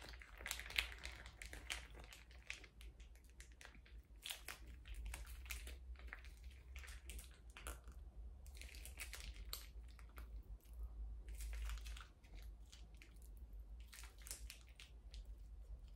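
Faint crinkling and rustling of small plastic sachets from a hair-relaxer kit being squeezed and handled, with scattered light clicks, over a steady low hum.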